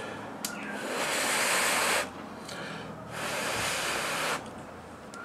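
Two long, even hisses, each about a second and a half, with a pause of about a second between them.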